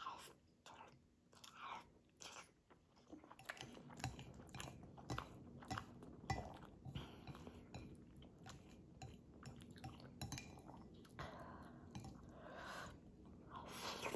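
A person chewing and slurping instant ramyun noodles close up, with many small wet mouth clicks and smacks and longer slurps near the end.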